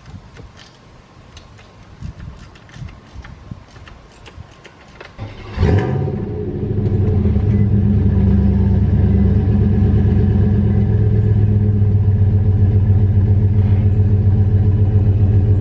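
Light clicks and rustling, then about five and a half seconds in a vehicle engine starts, revs briefly and settles into a steady idle.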